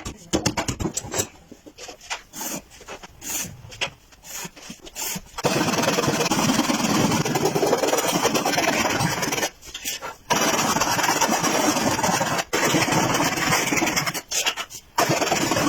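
Scattered knocks and taps on wood, then a motorized woodworking tool running in stretches and abrading wood, cutting out briefly a few times.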